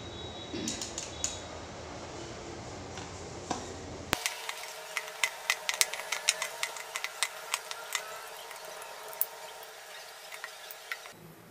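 Quick series of light clicks and taps from hands working a metal can lid with a small hand tool. The clicks are densest from about four seconds in and thin out near the end.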